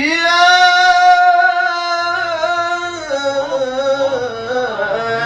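Male Quran reciter's voice in melodic, drawn-out recitation, holding one long vowel: a steady note that steps down in pitch about three seconds in, then turns into wavering ornaments. The voice is dry, with no added echo effects.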